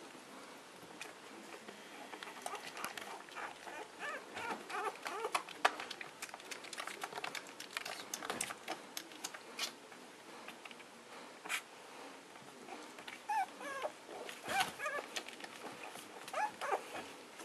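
Puppies play-fighting: many short, high squeaks and whimpers, in bunches, with scuffling and light clicks of paws on the crate floor.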